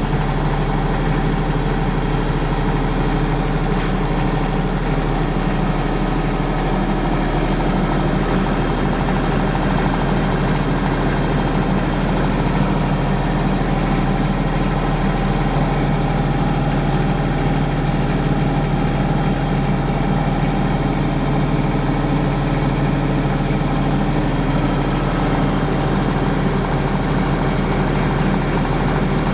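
The three-cylinder 1.6-litre Nissan diesel of a Denyo DCA-15SS-N generator set is running steadily at its normal governed speed of about 1500 rpm. It is still warming up and carries no electrical load.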